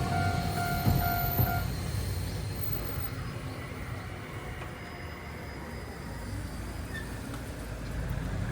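Railroad crossing warning bell ringing, then stopping about one and a half seconds in, as a Toden Arakawa Line (Tokyo Sakura Tram) tram moves away. The tram's low rumble fades over the next few seconds to steady street background.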